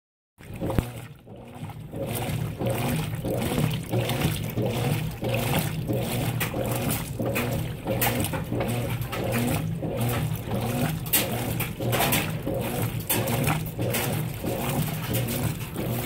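Consul 16 kg top-load washing machine agitating a load of whites: a steady motor hum under repeated swishing and sloshing of the foamy water as the agitator churns the clothes.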